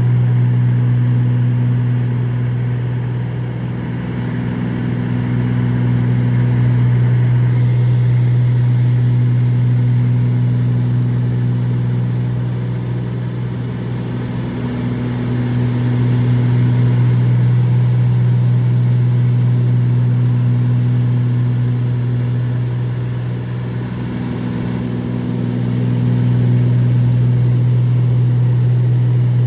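Cabin drone of a twin-engine piston aircraft in flight, propellers and engines running steadily with a strong low hum. The sound swells and fades slowly about every ten seconds, the beat of two propellers turning at slightly different speeds.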